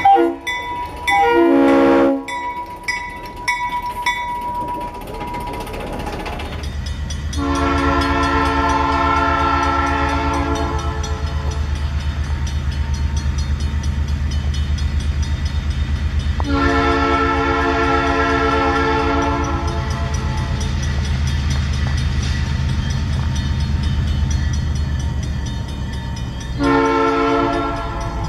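Diesel locomotive horn sounding a multi-tone chord: two long blasts and then a short one, the opening of a grade-crossing signal. The locomotive's diesel engine runs steadily underneath.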